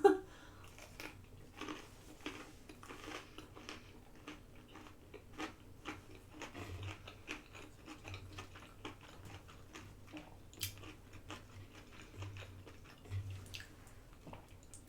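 A person chewing food close to the microphone: soft, irregular crunches and wet mouth clicks, with a few low, muffled bumps in the second half.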